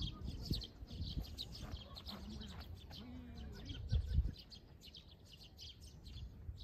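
Small birds chirping over and over in quick short notes, with wind rumbling on the microphone in gusts, the strongest about four seconds in.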